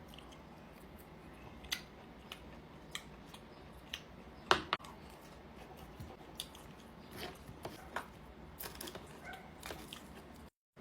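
Close-miked eating sounds from a steak meal: scattered sharp clicks and short crunchy, wet chewing noises at uneven intervals, the loudest click about four and a half seconds in.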